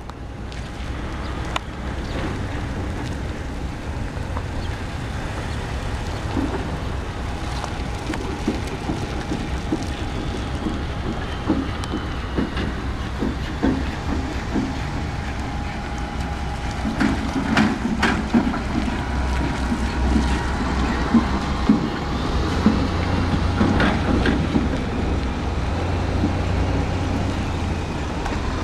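2009 Toyota Tacoma pickup driving slowly around a paved lot: engine running and tyres rolling over a steady low rumble, getting louder in the second half as the truck comes nearer, with a few sharp clicks along the way.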